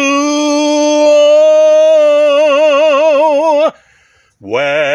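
A man singing without accompaniment, holding one long note for about three and a half seconds, with vibrato coming in over its second half. He breaks off for a breath, then comes back in on a lower note near the end.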